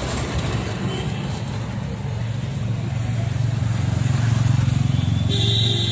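Road and traffic noise heard from a moving rickshaw: a steady low vehicle rumble that grows a little louder about three seconds in. A short beep sounds near the end.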